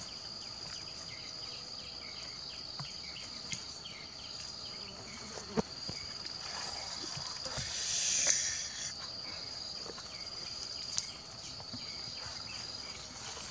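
Steady high-pitched insect drone with brief breaks, and quicker repeated chirping over the first few seconds. A sharp click comes about five and a half seconds in, and a short rustle around eight seconds.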